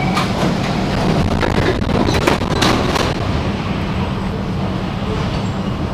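Singapore MRT train running with a steady low rumble, with a cluster of sharp knocks and clacks over the first three seconds, typical of wheels passing over rail joints or points.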